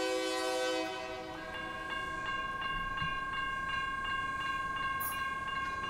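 Approaching locomotive's air horn sounding a chord, which stops about a second in. Then the grade-crossing warning bell rings about three times a second as the crossing gate arm lowers, a sign that the crossing signals are active for an oncoming train.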